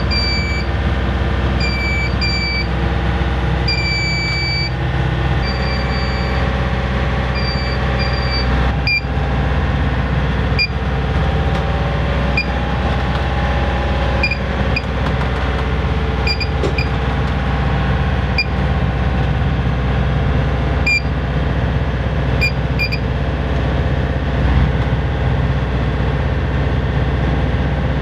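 Boat engine running with a steady low drone, heard inside the cabin. Over the first several seconds a string of short, high electronic beeps sounds over it, followed by occasional single pips and a few sharp clicks.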